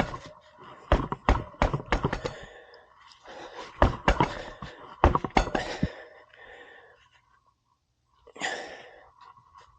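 Sharp knocks and clanks of hand work on a motorcycle wheel, several strikes over the first six seconds, followed by a short scuffing rush near the end.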